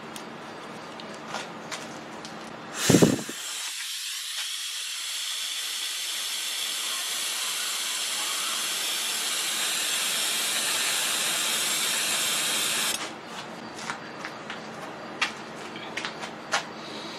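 Compressed-air blow gun: a sharp burst of air about three seconds in, then one steady hiss of about ten seconds that cuts off suddenly. A few light clicks of tools being handled follow.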